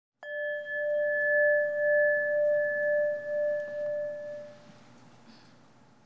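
A single struck bell-like tone that rings on steadily and slowly fades away over about four seconds.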